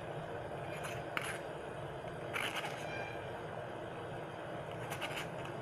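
A spoon scraping and clinking a few times against a steel mesh tea strainer, pressing out froth skimmed from melting butter during ghee making, over a steady low hiss.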